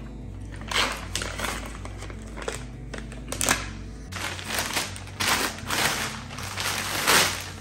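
Packaging rustling and crinkling in irregular bursts as it is handled and opened.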